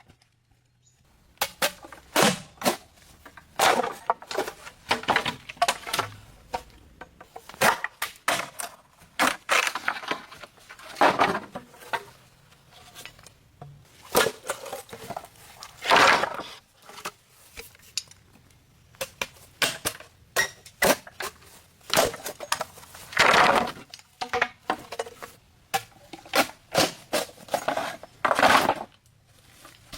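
Irregular clattering knocks and scrapes of hard objects being handled, a few louder knocks standing out among quieter ones.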